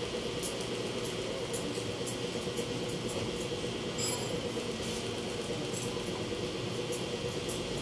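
Barber's scissors snipping hair in light, irregular clicks over a steady electric hum.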